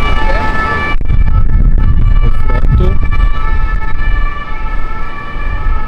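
Emergency-vehicle siren holding steady tones throughout, under heavy wind rumble on the microphone.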